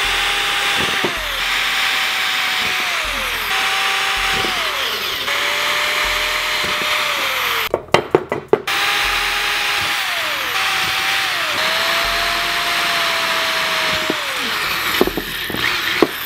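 Power drill boring holes into a metal scooter deck in repeated short runs. Each run is a steady motor whine that drops in pitch as the trigger is let go. A quick cluster of sharp clicks comes about eight seconds in.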